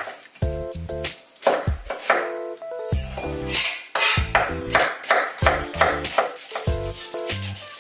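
Chef's knife chopping an onion on a wooden cutting board: a run of sharp chops, two to three a second, over a light background music tune.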